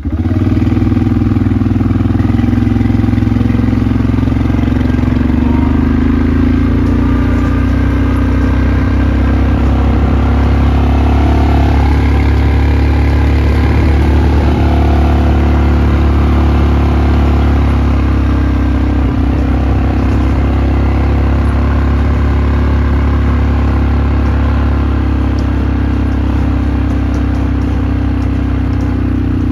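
Quad bike (ATV) engine running steadily as the bike drives across a grass field, loud and close.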